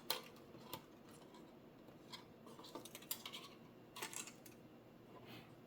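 Faint, scattered light clicks and taps, about a dozen at uneven intervals, from hands handling ribbon cables and small connectors on an LCD monitor panel.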